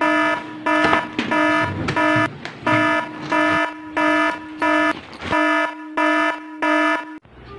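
Electronic alarm beeping in an even, repeating pattern, about one and a half beeps a second at one steady pitch, stopping shortly before the end. It serves as the earthquake warning in a drill.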